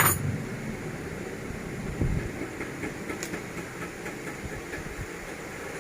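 Light handling sounds from work on an LED TV's frame as foam tape is fitted: a sharp snap at the start, a knock about two seconds in, and scattered soft clicks over a steady background hiss.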